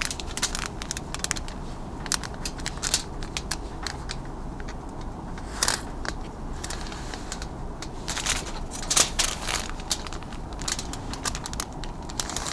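Aluminium foil crinkling under hands, a marker pen and a wooden ruler as lines are drawn on it: many short, irregular crinkles and clicks.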